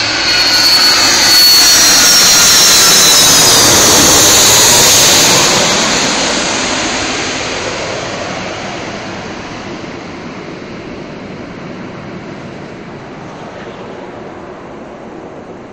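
Twin-engine jet airliner passing low overhead on final approach. Loud jet engine noise with high whines that slide down in pitch as it goes over, loudest for the first five seconds or so, then fading steadily as the jet moves away toward the runway.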